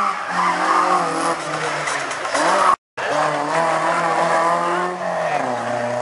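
Rally car engine revving hard, its pitch rising and falling through gear changes, with tyres squealing. The sound cuts out for a moment about halfway through.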